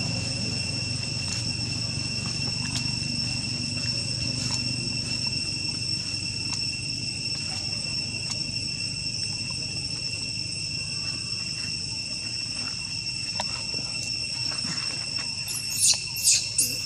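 Insects droning steadily in one even, high-pitched whine, with faint scattered ticks. Near the end come a few short, loud, high-pitched squeaks.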